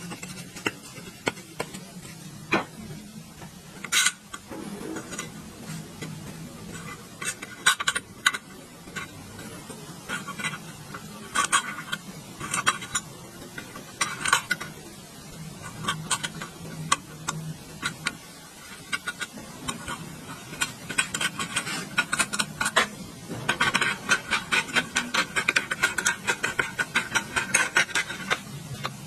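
Hand tools clicking and tapping against the metal parts of an electric water pump motor, in scattered single knocks, with a quick run of rapid clicks near the end.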